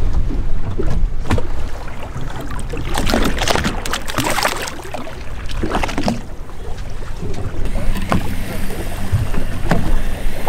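Wind and water noise on a small boat's open deck, with a rumble under it, and a cluster of knocks and clatter in the middle.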